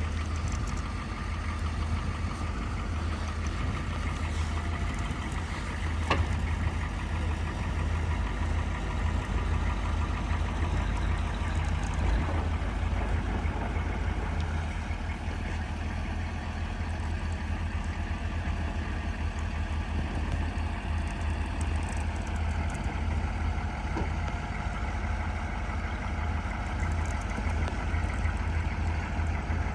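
Truck engine running steadily with a low hum, with an occasional sharp click, the clearest about six seconds in.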